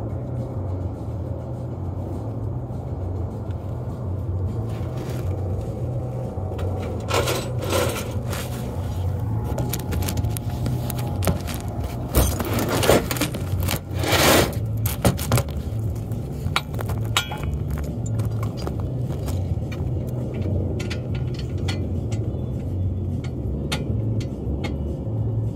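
A vehicle's low, steady rumble runs throughout. A cluster of scrapes and clinks comes about seven to fifteen seconds in.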